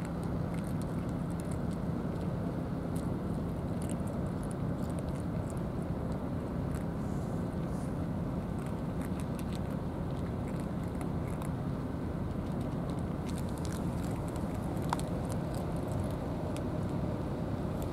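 Cats eating from food trays, faint crunching ticks scattered throughout, over a steady low rumble.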